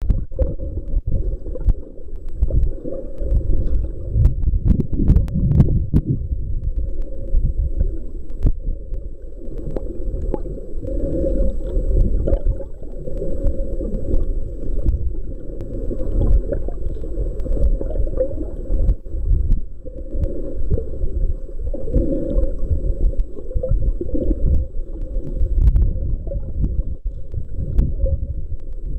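Muffled underwater rumble and sloshing of water against a camera held just below the surface, dull and deep with nothing bright above it, with a few scattered clicks and a faint steady high whine.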